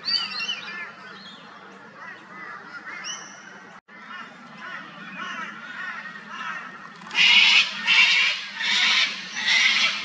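Sulphur-crested cockatoo screeching: four harsh, loud screeches in the last three seconds. Smaller birds chirp throughout.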